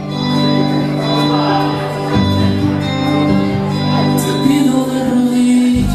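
Bachata song playing, with a singing voice over the music.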